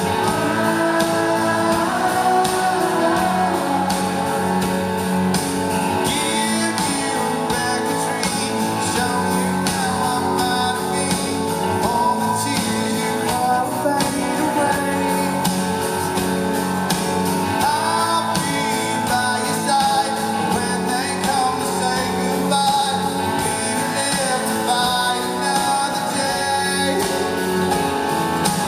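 Live rock band playing a mid-tempo song: strummed guitars and a steady beat under a male lead vocal, heard from the audience in a large hall.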